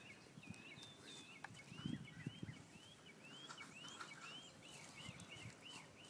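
A bird singing a long run of quick repeated whistled notes, each rising then falling, several a second and growing steadier toward the end. Faint, with a few soft low thuds about two seconds in.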